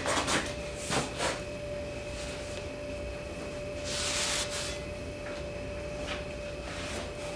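A rag rubbing and wiping quench oil off a hot-forged steel bar: a few short rubs and knocks at first, then a longer soft swish about four seconds in, over a faint steady hum.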